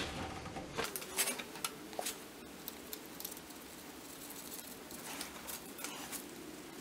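Faint metallic clicks and light scrapes from the front sprocket's retainer plate and bolt being fitted onto the countershaft splines. A cluster of clicks comes about a second in and a few softer ones near the end.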